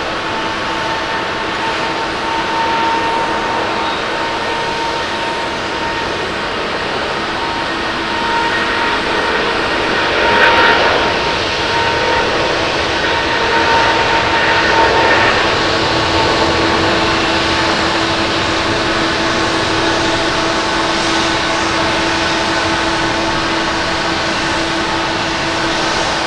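Boeing 777-200ER's twin jet engines at takeoff thrust as the airliner accelerates down the runway on its takeoff roll. The noise is steady, with a droning tone, and grows louder around the middle.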